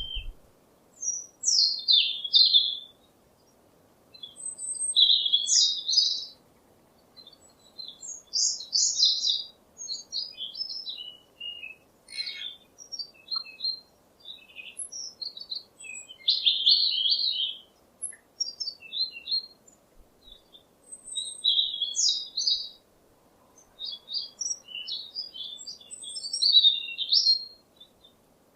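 A songbird singing: quick, high twittering phrases, one every one to three seconds with short pauses between them, over a faint steady hiss.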